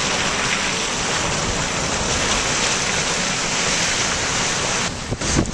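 Steady, loud rushing of wind blowing across the microphone, with a brief dip and a couple of knocks near the end.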